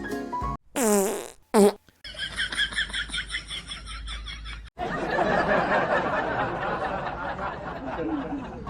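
Prank fart noises: two short, loud squeals that fall in pitch about a second in, then a pulsing fart sound and, from about five seconds in, a long sputtering wet-sounding fart.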